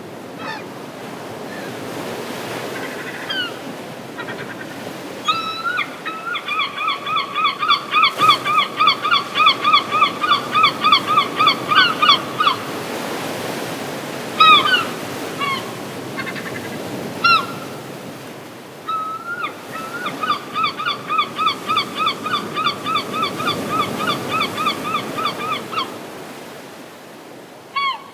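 Gulls calling over steady surf: scattered single squawks, and twice a long run of rapid, evenly repeated yelping calls, the gull long call, lasting about six seconds each.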